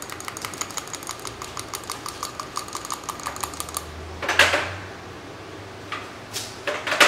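A stir stick tapping and scraping inside a small jar of gold metallic powder to get the last of it out: a quick run of light ticks, about six a second, for roughly four seconds, then a few louder scrapes.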